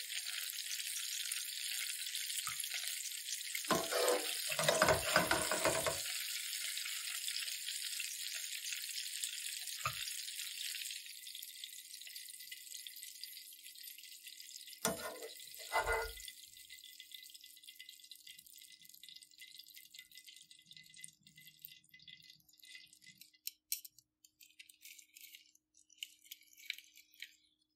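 Carp steaks sizzling in hot oil in a frying pan; the sizzle is strong at first, then weakens and dies away over the second half as the fish are lifted out. A few low knocks of metal tongs against the pan about four to six seconds in and again around fifteen seconds, and a few light clicks near the end.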